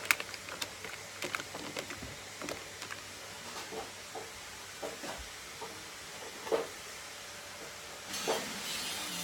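Plastic makeup cases and compacts clicking and knocking as they are handled and set into a plastic storage box: scattered single taps over a faint steady hiss. Near the end a louder hiss comes in.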